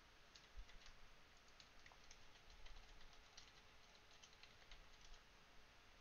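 Faint typing on a computer keyboard: a run of quick, light key clicks that stops about a second before the end.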